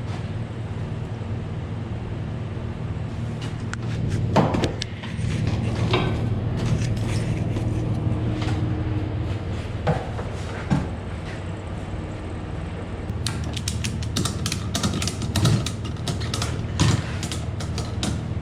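An engine idling steadily under scattered metallic clicks and clunks of a spreader's latch and hitch pin being worked, with a flurry of rapid clicks near the end.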